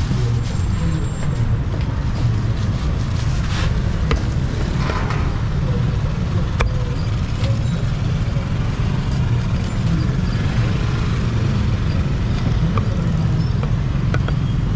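Steady low rumble of street traffic, with a few sharp knocks of a cleaver chopping roast duck on a wooden chopping block.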